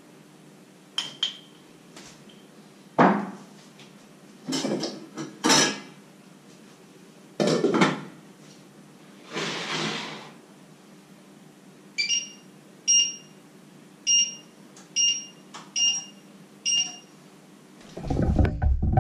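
Metal utensil clinking and knocking against a small stainless-steel saucepan and its lid, then a run of about seven short electronic beeps, roughly one a second, from the electric hob's touch controls as its setting is changed. Rumbling thumps near the end.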